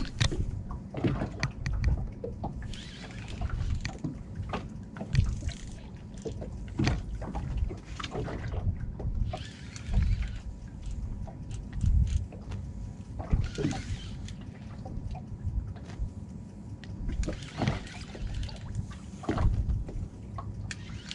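Water sloshing and lapping against a small boat's hull, in swells every few seconds, with irregular low thumps and a few short knocks.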